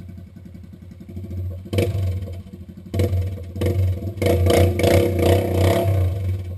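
ATV engine running with a fast, even chugging. It is revved in short surges about two and three seconds in, then held louder for a couple of seconds near the end, with some clatter.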